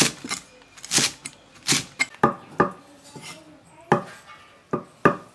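A steel cleaver chopping through garlic chive stalks and soft chicken blood curds onto a wooden chopping board: about eight sharp knocks at uneven intervals.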